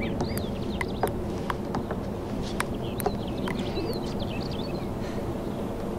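Birds chirping over a steady low hum, with scattered sharp clicks about a second apart.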